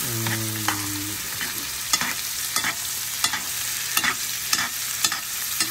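Steak and butter sizzling steadily in a hot cast iron skillet during the final sear of a reverse sear, while the steak is basted with the butter, with a spoon clinking against the pan about every half second.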